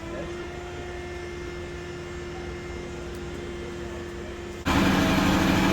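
Steady mechanical hum with a constant tone over a low rumble; about a second before the end it cuts abruptly to a louder engine running steadily at idle.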